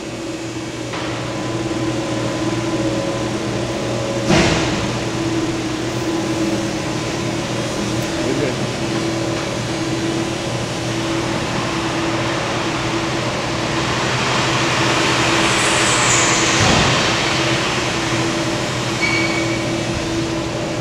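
Steady hum of factory machinery and ventilation, with plastic wrapping and cardboard being handled over it. There is a sharp knock about four seconds in, and the handling noise grows louder a few seconds before the end.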